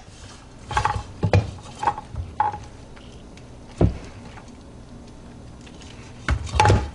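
Scattered clinks and knocks of metal kitchenware, some with a short metallic ring, as the cooked chicken is handled out of the cooker's pot; a louder clatter comes near the end.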